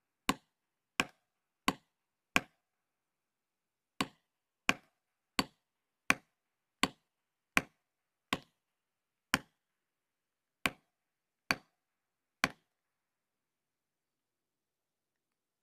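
A series of sharp, evenly paced knocks, about one every three quarters of a second, with a short break about three seconds in; they slow slightly toward the end and stop about two thirds of the way through.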